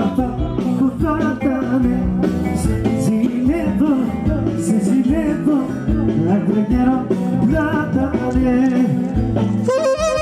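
Greek folk band playing live: a clarinet leads an ornamented, bending melody over a steady bass and rhythm.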